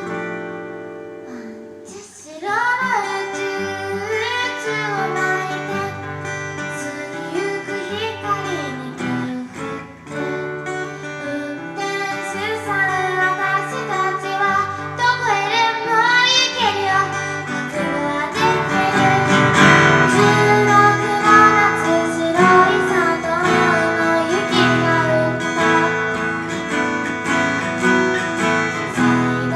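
Live band music: a woman singing over guitar and bass. A held chord fades out, the voice comes back in about two seconds in, and the band grows louder about two-thirds of the way through.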